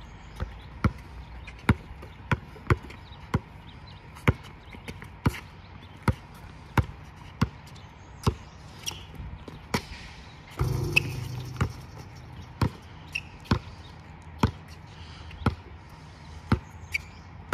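A basketball being dribbled, bouncing about twice a second. Just over halfway through, a brief burst of noise lasts about a second.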